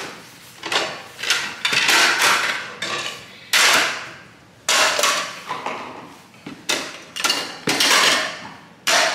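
Washed dishes being packed into a plastic washing-up tub: a string of loud clatters and knocks of plates, cups and cutlery, about one a second.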